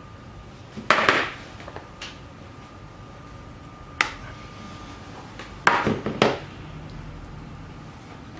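A few sharp knocks and clatters of a plastic mandoline slicer and other kitchen items being handled and set down on a wooden tabletop: a loud one about a second in, another near four seconds, and a quick run of knocks around six seconds. A faint steady high hum runs underneath.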